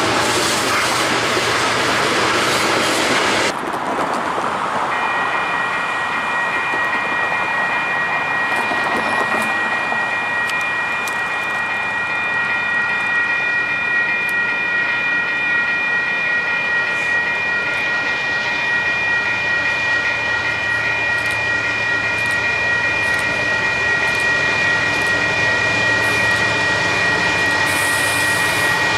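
Train rolling past, the noise of its wheels on the rails with scattered clicks. A few seconds in, the sound changes abruptly, and from then on a steady high ringing tone holds over the rolling.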